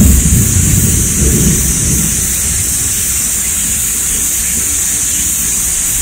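Low rolling thunder fading away over the first second or two, with a steady high hiss that carries on after it.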